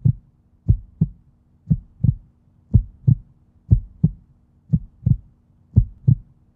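Heartbeat sound effect: low double thumps, lub-dub, repeating about once a second over a faint steady hum.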